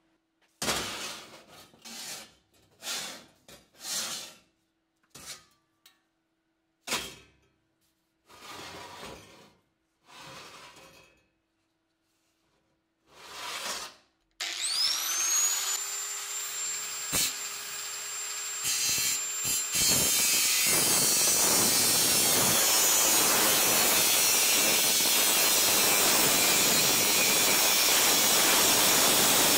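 Several short scraping strokes, then an angle grinder switched on, its whine rising quickly as the motor spins up about halfway through. A few seconds later the disc bites into the rusted steel of the WWI German M16 Stahlhelm and a steady, loud grinding noise takes over.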